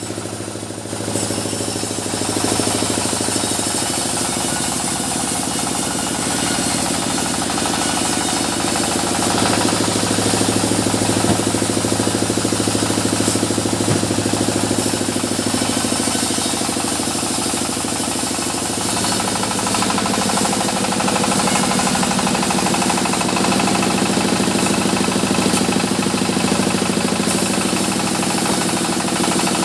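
Sawmill machinery running: a steady, loud engine-driven drone with a dense rattling noise over it, the pitch shifting up about nine seconds in and shifting again near nineteen seconds.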